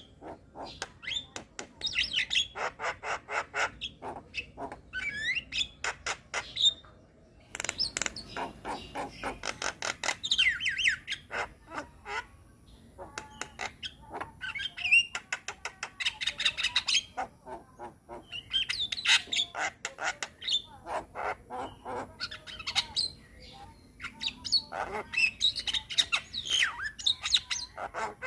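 Javan myna singing a long, varied chattering song: fast runs of clicks, gliding whistles and harsh squawks, packed with mimicked notes, with a short break about seven seconds in. A faint steady high whine runs under it from then on.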